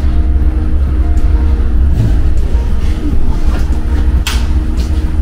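Steady low mechanical rumble, like workshop machinery running, with a short clatter about four seconds in.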